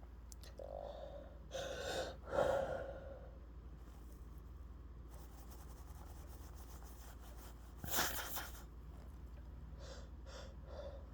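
A person gasping in catching, voiced breaths as a sneeze builds, the loudest gasp about two and a half seconds in. About eight seconds in comes a short, sharp burst of breath, then a few more small catching breaths near the end.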